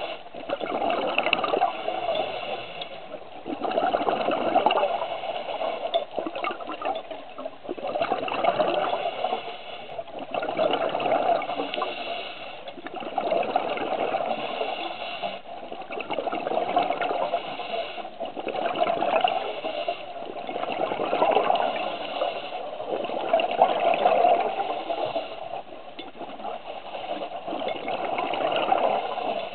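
Scuba regulator breathing underwater: gushing rushes of exhaled bubbles that swell and fade about every three seconds.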